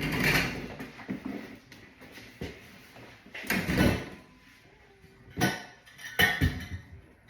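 A series of about five wooden-sounding knocks and thumps, like furniture parts or panels being handled and set down, with the loudest about three and a half seconds in.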